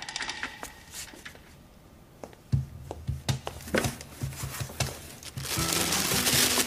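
Scattered soft clicks and knocks, then a loud crinkling rustle near the end as a pile of plastic crisp bags is dumped onto a table.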